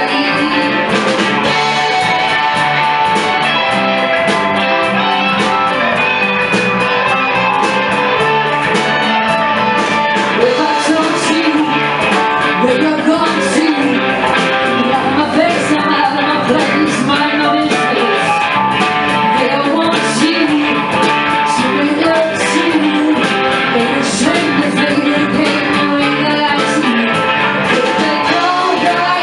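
Live rock band playing: electric guitars, bass and drums, with a woman singing lead.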